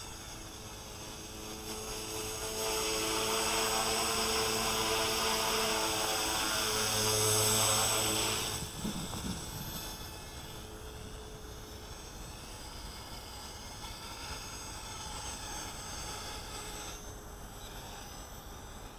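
CopterX CX250SE electric RC helicopter flying: a steady whine from the motor and rotors. It grows louder for about six seconds, drops off suddenly about eight and a half seconds in, then goes on more faintly.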